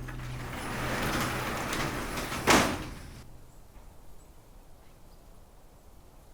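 A door sliding along and shutting with one sharp bang about two and a half seconds in. A steady low hum stops just after it.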